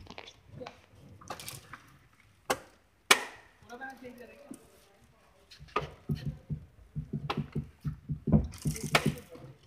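Hard plastic clicks and knocks as a centre armrest console is pushed and fitted into place between car seats, one sharp knock about three seconds in and a quicker run of small knocks from about six seconds on.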